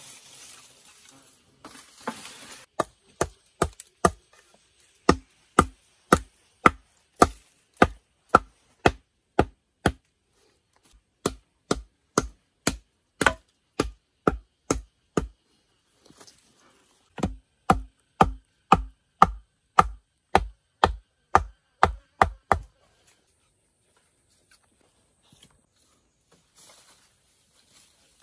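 Repeated chopping blows, about two a second, each a sharp crack with a dull thud beneath it. They come in three runs with brief pauses and stop about 23 seconds in.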